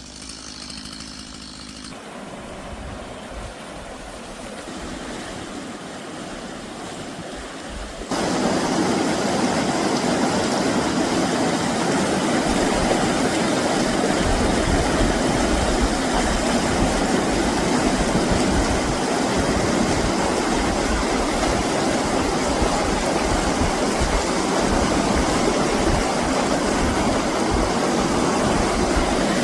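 Rushing meltwater from a river running high in spring flood, a steady hiss; it grows louder about two seconds in and jumps louder again about eight seconds in.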